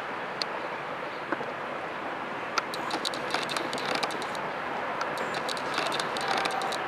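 Steady rushing noise of a jet airliner taxiing at a distance, with a scatter of small sharp clicks from about two and a half seconds in.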